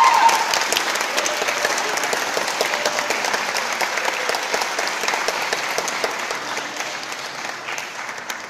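Applause from many people clapping, loud at first and slowly dying away toward the end.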